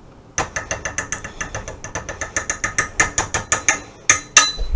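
A metal utensil rapidly clinking against a saucepan as cocoa powder is stirred into melting butter, sugar and milk: an even run of about seven sharp, ringing clicks a second, with a few louder strikes near the end.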